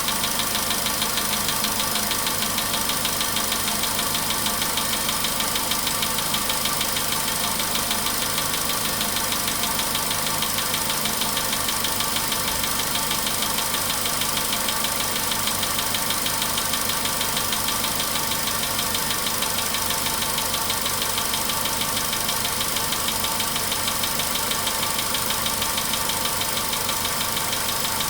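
A Volkswagen Polo Sedan's petrol engine idling a few minutes after a cold start, with a fast, steady knock from inside the engine. The knock is a cold-start knock that is easing as the engine warms.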